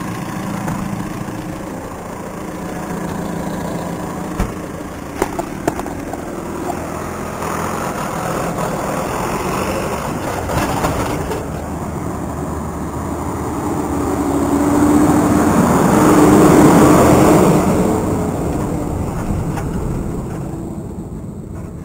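Farm machinery engines running close by: a tractor idles steadily while a trailer passes and a wheel loader drives up the track. The engine sound swells to its loudest about 16 to 17 seconds in, then eases off, with a few light knocks about four to six seconds in.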